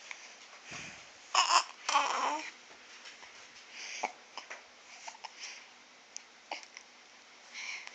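A four-day-old newborn hiccuping: two louder sudden sounds about a second and a half and two seconds in, then a string of small, sharp hiccups every second or so.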